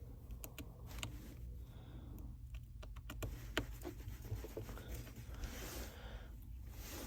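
Scattered light clicks and taps of small smartphone parts and tools being handled and set in place during reassembly, densest around the middle, with a brief soft rustle near the end over a steady low hum.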